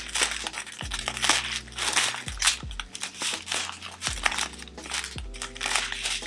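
Small plastic packets of diamond-painting drills crinkling as they are handled, over background music with a low bass line.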